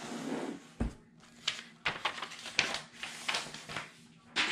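Paper and cellophane packaging rustling and crinkling in irregular strokes as a packing slip and plastic-bagged scrapbook kits are handled in an open cardboard box, with a soft thump just before a second in.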